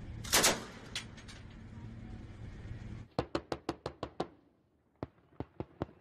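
Heavy machine gun fire: one loud shot about half a second in over a steady hum, then about three seconds in a rapid burst of around eight shots, followed by a few sparser, fainter shots near the end.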